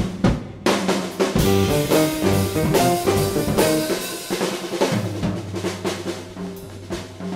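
Music with a drum kit beat and pitched melodic instruments.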